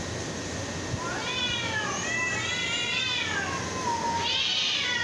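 Cats yowling at each other in a fight standoff. A long wavering yowl starts about a second in and rises and falls in pitch, and a second, higher yowl starts near the end.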